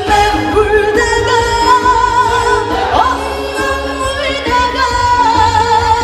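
A female vocalist singing a Korean trot song into a microphone over instrumental accompaniment, with long held notes carrying vibrato over a strong bass line.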